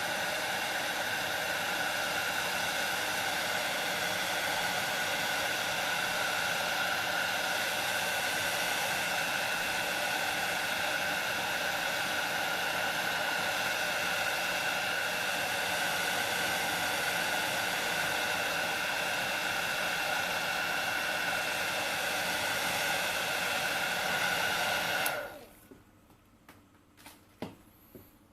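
Hot-air blower running steadily, with a whine over its airflow hiss. It is switched off abruptly about 25 seconds in, and a few light taps follow near the end.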